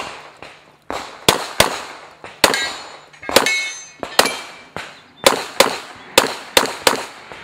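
Pistol shots fired rapidly at a practical-shooting stage: about a dozen sharp reports, many in quick pairs about a third of a second apart, each with a short echo.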